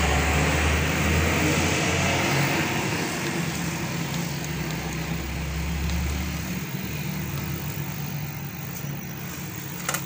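Road traffic: a motor vehicle's low engine rumble that fades out about two-thirds of the way through, over steady traffic noise.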